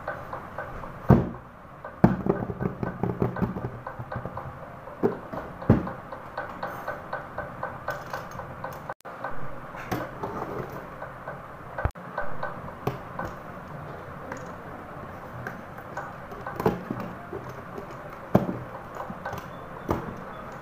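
Cardboard parcel being opened by hand: packing tape slit with a blade, then tape and cardboard flaps rustling and crackling as they are pulled apart, with sharp knocks and clicks against the box every few seconds.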